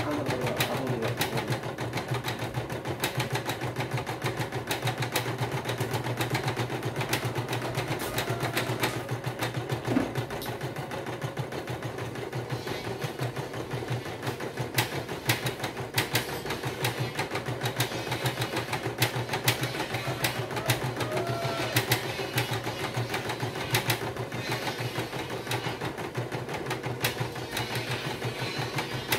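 Singer Quantum Stylist EM200 computerized embroidery machine stitching a design, its needle running in a steady rapid patter while the embroidery hoop carriage moves the fabric.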